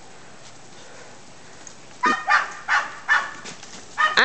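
Loud animal calls: four pitched calls in quick succession about two seconds in, and another beginning near the end.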